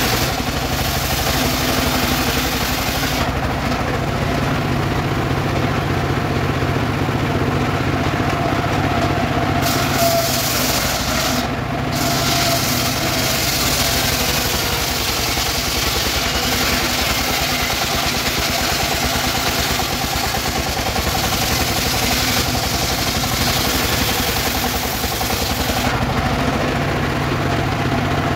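Portable circular sawmill running steadily, its engine-driven blade ripping a weru log lengthwise. The high rasp of the blade in the wood is strongest through the middle stretch.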